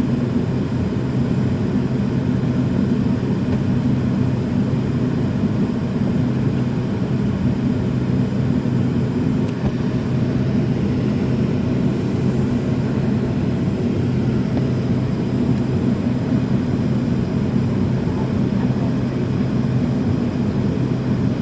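Steady low drone with a constant hum inside the cabin of an MD-80 airliner parked at the gate, its air and ventilation systems running before engine start.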